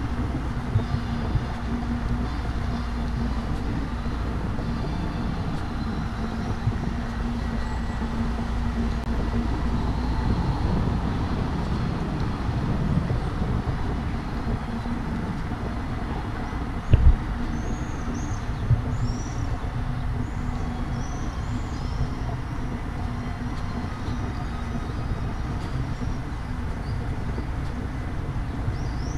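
Steady low rumble of city street traffic, with one short knock about 17 seconds in and small birds chirping in the second half.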